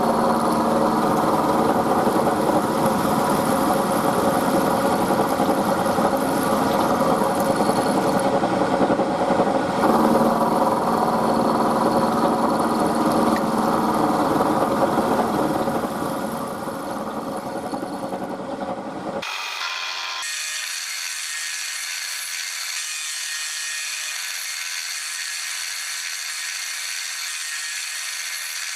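Milling machine running, its cutter machining a pocket into the steel end of a hook spanner: a dense grinding-cutting noise with steady tones. About two-thirds of the way through it fades a little, then changes abruptly to a thinner, higher steady hiss with no low end.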